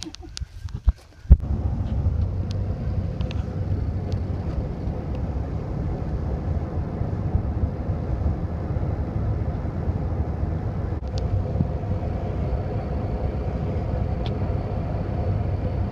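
A few sharp clicks and a loud knock about a second in, then a car driving with a steady low rumble.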